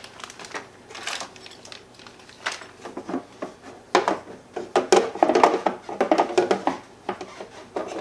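Handling noise at a countertop: plastic packaging crinkling, with a rubber hose and cables sliding, clicking and knocking as they are pulled out of a MIG welder's storage compartment. The rustling is busiest in the middle, from about four to seven seconds in.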